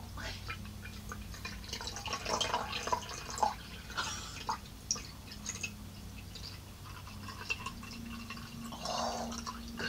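Water poured in a thin stream from a plastic bottle into a partly filled glass, trickling and splashing unevenly as the glass fills.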